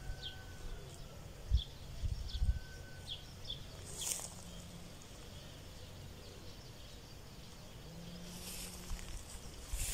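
Rural outdoor ambience: small birds chirping in short, high, repeated notes over a low rumble with a few soft thumps. Brief rustles of tall grass come about four seconds in and again near the end.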